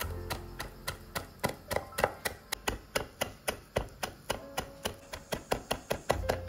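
Santoku knife chopping fresh parsley on a wooden cutting board: quick, even blade knocks on the wood, about four a second.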